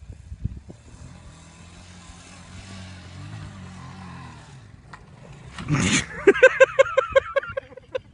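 A 200cc ATV engine running steadily at low revs. About six seconds in there is a loud rush, followed by a quick run of high, pulsed, voice-like calls at about six a second.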